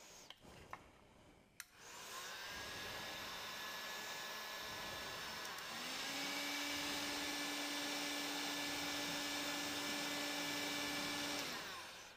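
Electric heat gun blowing hot air onto a kayak's plastic hull to soften it back into shape. It starts about two seconds in with a steady fan whir, steps up louder with a higher tone about halfway through, and shuts off just before the end.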